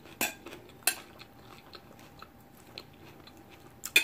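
A metal fork clinking and scraping on a plate: two sharp clicks near the start and another near the end, with small ticks of quiet chewing in between.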